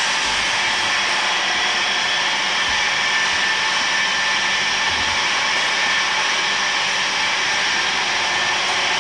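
A steady, unbroken mechanical whir with a strong hiss, like a machine or blower running continuously.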